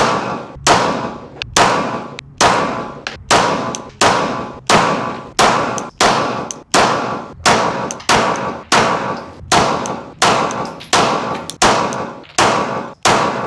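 Glock 17 Gen 6 9mm pistol firing a steady string of about eighteen shots, roughly one every three-quarters of a second, each shot with a short ringing tail.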